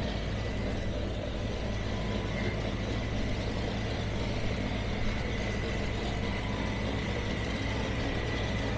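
An engine idling steadily, a deep even idle with a faint steady whine above it.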